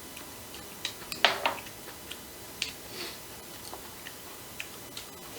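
Eating sounds: chewing and biting into food, with scattered short clicks and a louder cluster of sharp clicks a little over a second in.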